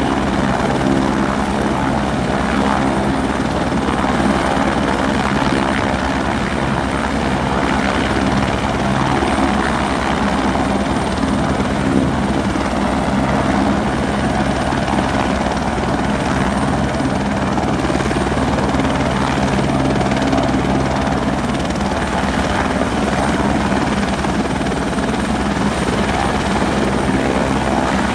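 Helicopter running steadily on the ground, its rotor turning.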